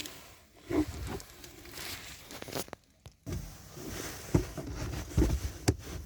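Scattered light knocks, clicks and rustling of hands handling the plastic glove-box trim in a car interior, with a brief cut to silence about halfway through.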